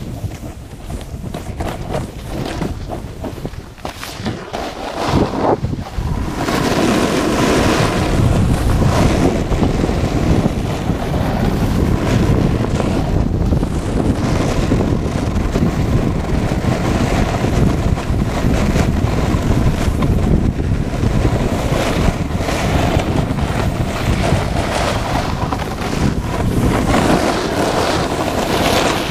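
Wind rushing over a GoPro's microphone during a fast snowboard descent, mixed with the Burton Custom Camber snowboard scraping and carving over packed snow; it gets louder about six seconds in and stays steady.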